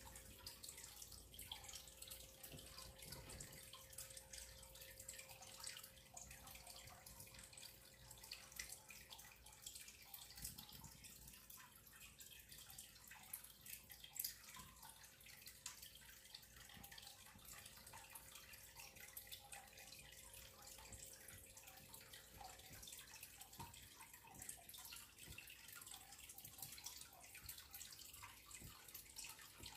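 Near silence: faint room tone with scattered soft ticks, and a faint steady hum that fades out about three quarters of the way through.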